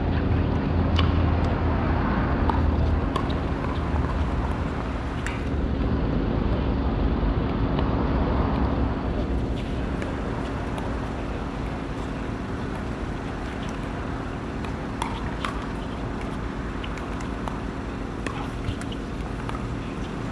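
Outdoor court ambience: wind rumbling on the microphone for the first half, under a steady low hum. A few sharp single pocks of pickleball paddles striking the ball on nearby courts come through, with a pair close together about fifteen seconds in.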